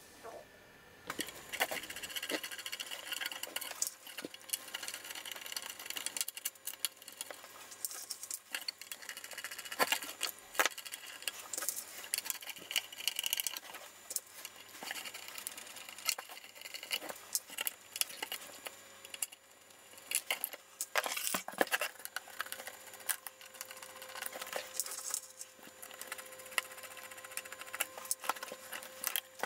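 Screwdriver work on a metal avionics case: scattered clicks, taps and small metal rattles as the tiny slotted screws are undone and the back cover is taken off.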